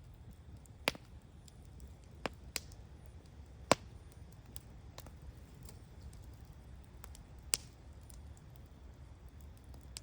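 Wood bonfire crackling, with about half a dozen sharp, scattered pops, the loudest a little over a third of the way in, and fainter ticks between them over a low steady rumble.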